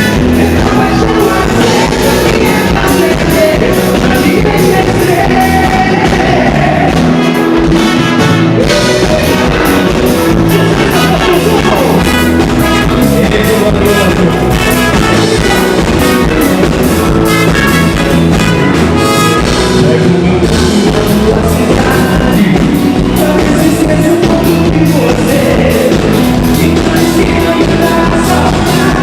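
A live band playing an upbeat dance song with a lead singer over a steady drum beat.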